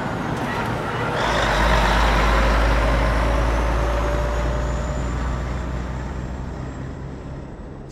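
Heavy truck engine running. It grows louder about a second in, with a faint whine slowly rising in pitch above the rumble, then gradually fades.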